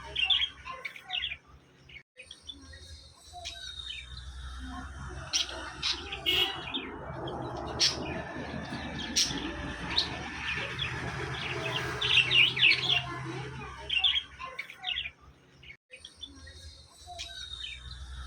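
Budgies chirping and chattering in clusters of high chirps, over a low steady hum with scattered sharp clicks. The sound drops out briefly twice.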